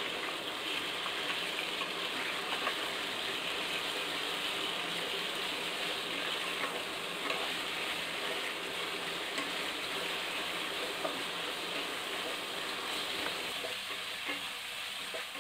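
Raw chicken pieces sizzling in hot oil in a kadai, a steady frying hiss, while a wooden spatula stirs and turns them.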